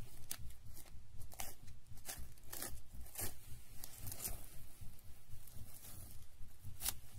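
Plastic cling film being pulled off its roll and stretched over a plastic cup: an irregular run of crinkling, tearing rustles.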